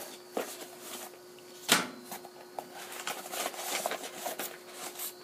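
Paper booklets and cardboard rustling and crackling as instruction papers are worked out of a tightly packed box, with one sharp knock about 1.7 s in.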